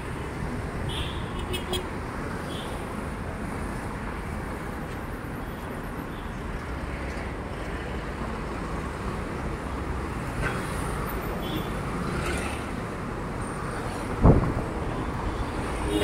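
Busy city street traffic: a steady hum of passing vehicles, with one sharp knock near the end.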